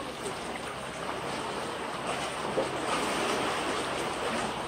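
Sea water washing against a breakwater: a swell of hiss that builds about two seconds in and eases off near the end.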